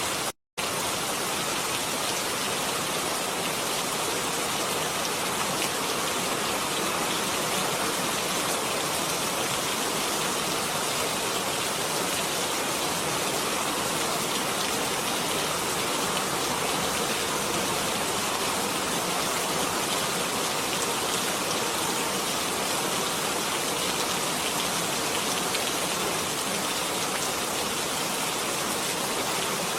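Steady rain falling, an even continuous hiss. It cuts out completely for a split second about half a second in.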